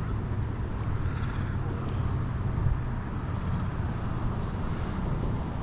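Steady low rumble of wind buffeting the microphone outdoors by the water.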